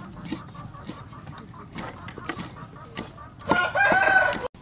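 A cleaver chopping red chilies on a wooden chopping block, a few scattered knocks, then a rooster crows loudly about three and a half seconds in, cut off abruptly near the end.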